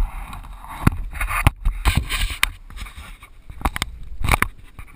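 Wind buffeting on the microphone of a camera mounted on a slowly rolling motorcycle. It is broken by repeated sharp knocks and rubbing as the camera is handled and turned over.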